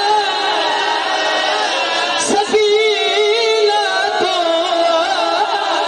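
A zakir's male voice in sung, chanted recitation at a majlis, with long wavering held notes.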